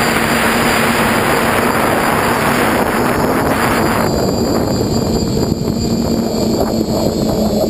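DeadCat quadcopter's electric motors and propellers humming in flight, with heavy wind rush on the onboard camera's microphone. The rushing noise thins out about four seconds in, while the motor hum carries on.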